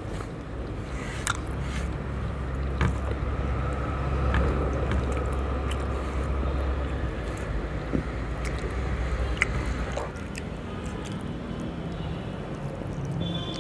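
Fingers mixing rice and curry on a steel plate: wet squishing and scraping, with a few sharp clicks against the metal. A steady low hum runs underneath.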